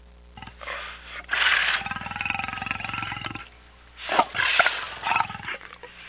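A big cat growling in two bouts: a rough, pulsing growl of about three seconds, then a shorter broken one.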